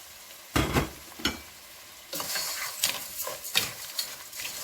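Rice being added to a pan of frying seafood, onion and garlic in oil, sizzling as it is stirred in: two thumps near the start, then a dense crackling sizzle with stirring from about two seconds in.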